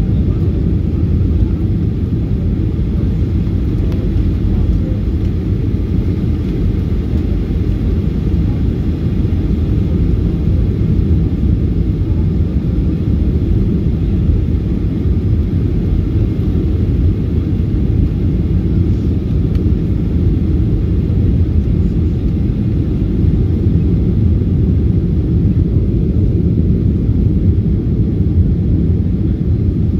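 Steady, low-pitched cabin noise inside a Boeing 737-800 in flight: the drone of its CFM56-7B jet engines mixed with airflow noise along the fuselage, with no rise or fall.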